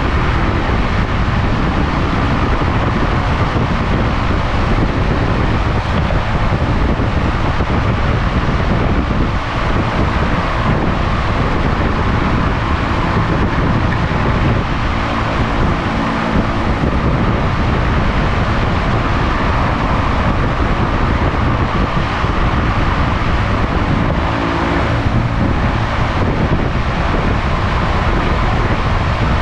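Electric shop fans running, a loud, steady whooshing rush of air with no breaks.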